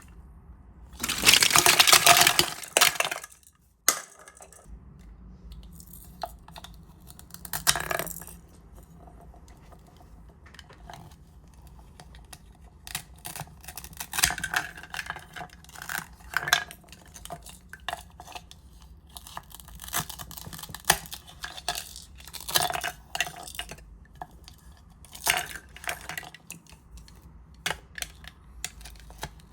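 Small hard objects clinking and tapping in a string of short, separate sounds, with a loud noisy rattling rush about a second in that lasts about two seconds.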